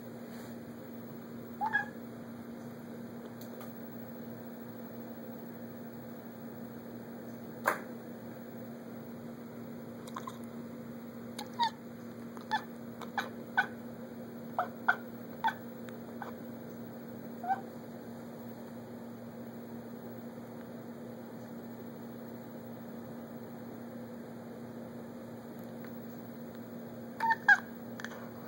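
Domestic cat chirping at squirrels it cannot reach: short, high chirps, a quick run of them in the middle and a pair near the end, with one sharp click about eight seconds in. A steady low electrical hum runs underneath.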